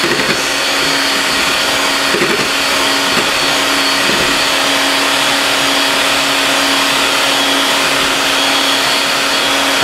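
Electric hand mixer running at a steady speed, its beaters whisking egg yolks as milk is slowly added.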